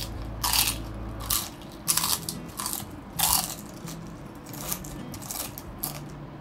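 Close-up eating sounds: a series of loud, crisp crunches as fried pork chicharon is bitten and chewed, coming quickly at first and thinning out after about three and a half seconds.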